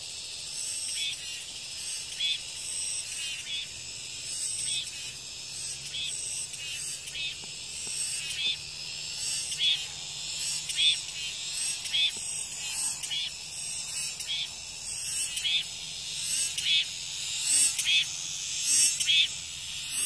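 Cicadas singing in the trees: a steady high-pitched hiss with a pulsing call that repeats roughly once a second, louder over the last few seconds.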